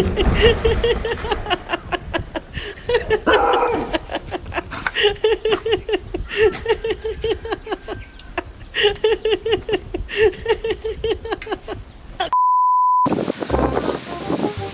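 A steady electronic beep tone, held for under a second near the end. Before it come repeated groups of short pitched bursts.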